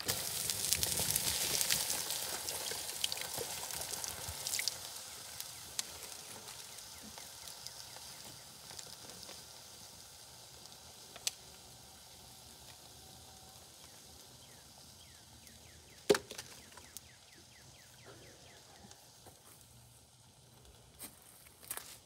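Water poured onto a burning plastic Sharp alarm clock: a sudden loud hiss and sizzle as the flames are put out, fading over several seconds into faint crackling and popping from the steaming, charred plastic. A single sharp crack about sixteen seconds in.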